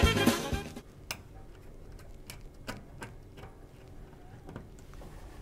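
Background music fading out in the first second, then faint, irregular clicks and light knocks of cables and plug connectors being handled and fitted at a wall-mounted connector box.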